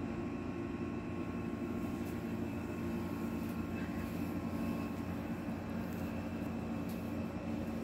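A steady low droning hum with no distinct squeaks.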